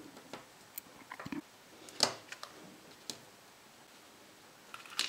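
Light clicks and taps of moulded chocolate pieces being handled and set down on a card, with the sharpest click about two seconds in. A clear plastic tray crinkles near the end as more pieces are taken out of it.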